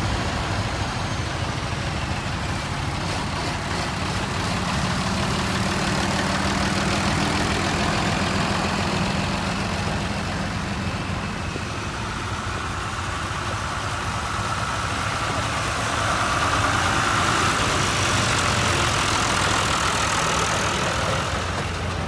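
Vintage farm tractor engines running at low speed as tractors drive slowly past one after another, a little louder near the end as the next tractor approaches.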